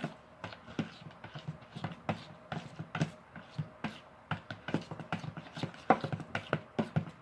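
A spoon stirring coloured glue for slime in a bowl, knocking against the sides in quick, irregular taps, a few a second.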